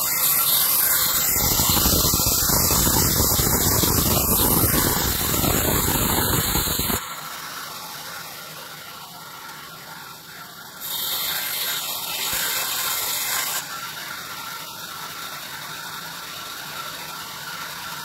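Horizontal sawmill band saw running, its blade cutting lengthwise through a log. The noise is loudest for the first seven seconds, drops suddenly, swells again briefly about eleven seconds in, and then settles lower.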